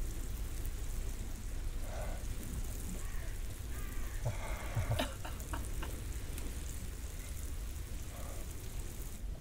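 A wood campfire crackling and sizzling as a steady hiss with fine crackles, over a low rumble. A few sharper clicks come about five seconds in.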